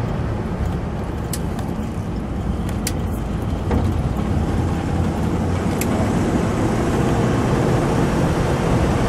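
A 1950 Buick Roadmaster convertible with its 320 cubic-inch Fireball straight-eight cruising at about 50 to 60 mph, heard from inside the car as a steady rumble of engine, wind and road noise. A few faint clicks sound over it.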